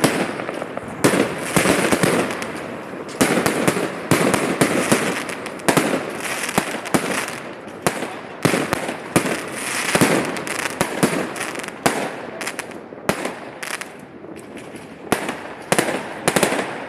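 Aerial fireworks bursting: many loud bangs in quick, irregular succession, with a continuous noisy wash between them.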